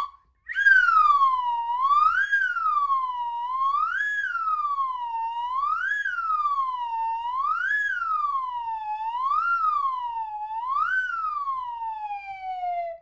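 A siren wailing, its pitch rising and falling about six times, roughly once every two seconds, then gliding down at the end.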